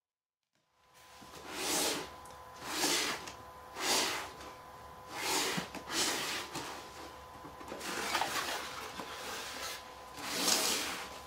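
A cardboard box being handled and opened: a series of rubbing, scraping swishes as it is turned over on the table and its lid flap is lifted, over a faint steady hum.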